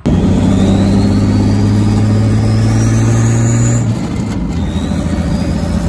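Turbocharged Jeep 4.0-litre inline-six running loud under acceleration, heard through its upright stack exhaust, with a high turbo whistle climbing steadily in pitch. About four seconds in the engine note drops and the whistle starts climbing again.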